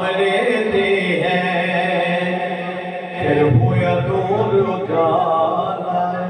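A man sings a Punjabi naat into a microphone in long, held notes that bend in pitch.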